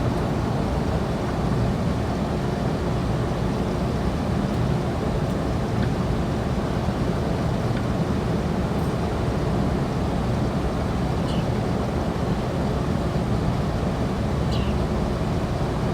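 Steady low rumble of city traffic noise, with two faint, short high chirps near the end.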